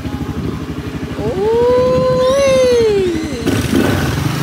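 Small scooter engine running with a fast, even low pulsing. About a second in, a person lets out a long rising-and-falling 'woo' that lasts about two seconds and is the loudest sound.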